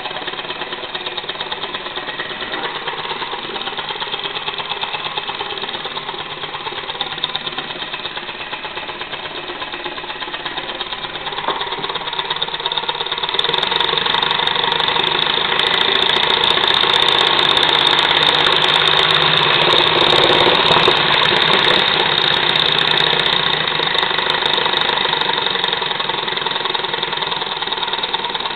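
Homemade oscillating-cylinder (wobbler) model engine running on compressed air, a rapid steady chuffing of exhaust puffs. It grows louder from about halfway and drops back near the end.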